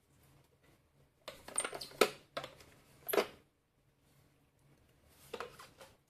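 Handling noise of a robot vacuum's charging dock being unpacked: short rustles, scrapes and light knocks, in a cluster about a second in, one around three seconds and more near the end.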